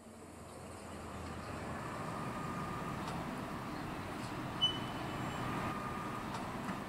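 Distant rumble of KiwiRail's EM80 track evaluation car running as it approaches slowly along the line, fading in over the first second or two and then holding steady. A single short high chirp sounds about two-thirds of the way through.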